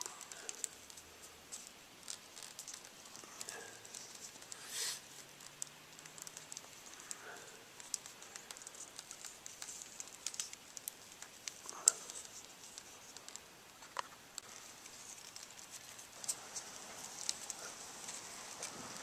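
Scattered light clicks, taps and rustles of small parts and wiring being handled, with one sharper click about twelve seconds in.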